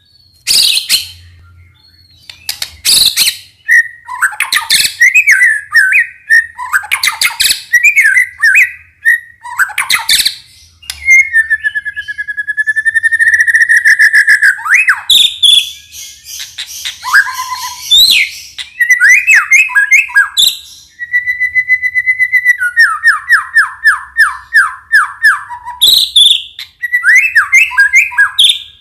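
White-rumped shama (murai batu) singing a long, varied song: sharp loud calls, whistled phrases, a long held whistle about a third of the way in, and a fast run of short notes past the middle.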